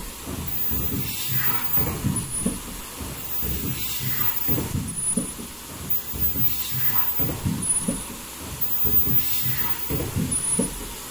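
Automatic foldable mask production line running, with its breathing-valve welding station: a repeating cycle of mechanical clatter and knocks with a short hiss and a brief high tone about every two and a half seconds, one cycle for each mask.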